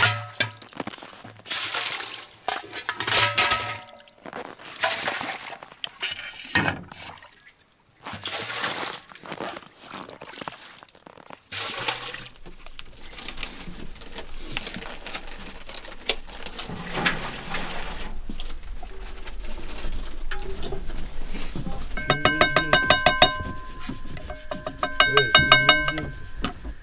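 Metal ladle scooping water from a hole in the snow and pouring it into aluminium milk cans, with clanks of metal on metal and splashing in irregular bursts. In the second half a steady low hum takes over, and near the end come two short bursts of a buzzing, rapidly pulsing tone.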